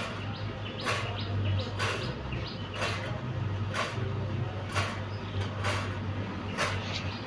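A fan turbine running with a steady low hum and a sharp scraping click repeating about once a second, with short squeaks in between: the strange noise it is making.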